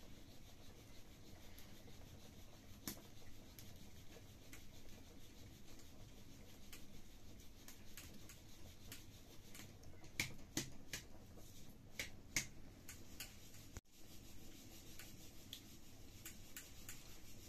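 Scattered sharp crackles and pops of a wood fire burning in a cooking stove, with a few louder pops about ten to twelve seconds in.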